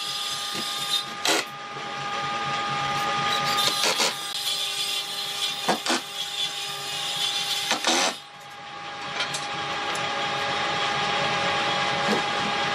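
An electric power tool running with a steady whine over a broad noise, with a few sharp knocks. The loudness drops briefly about eight seconds in, then builds back up.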